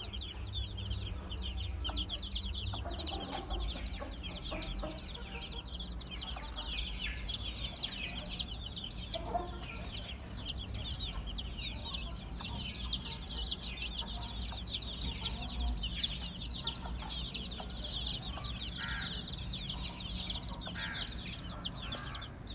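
A brood of Aseel chicks peeping without pause, a dense stream of short, high chirps, with a few low clucks from the mother hen among them.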